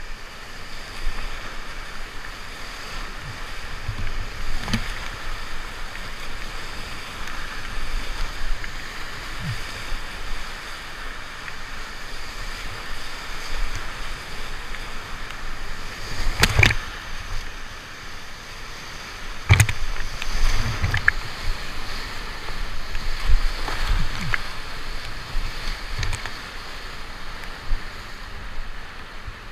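Fast, high whitewater rapids rushing steadily around a solo open canoe, with several sharp knocks and splashes from paddle and water hitting the boat; the strongest come about halfway through and again a few seconds later.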